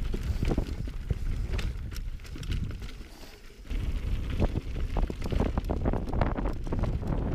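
Wind buffeting the action camera's microphone, with a mountain bike's tyres and frame crunching and clattering over a rough trail in quick irregular knocks; the noise dips briefly about three seconds in.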